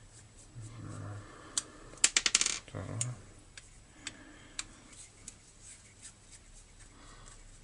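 Small metal clicks and clinks of a screwdriver working the screws out of a Stihl chainsaw's carburettor, with a quick rattle of about eight clicks a little after two seconds in, then scattered single clicks.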